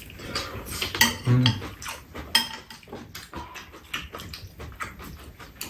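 Metal spoons clinking and scraping against bowls while eating: a steady scatter of light clicks, a few of them ringing briefly.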